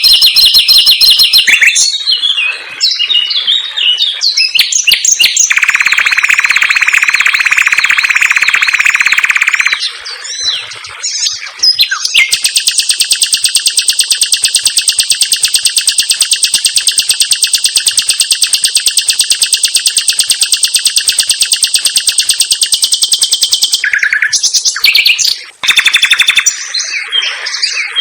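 Common nightingale singing a dense run of phrases: quick varied notes, then a lower rapid trill held for about four seconds. After a short break come a high, very fast trill held for about twelve seconds and more quick varied phrases near the end.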